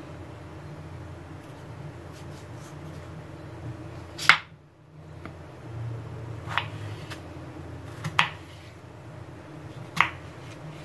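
Chef's knife cutting raw peeled potato into strips and knocking on a wooden cutting board: four sharp knocks roughly two seconds apart, over a low steady hum.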